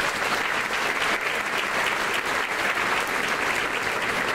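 A large audience applauding steadily, with many hands clapping at once.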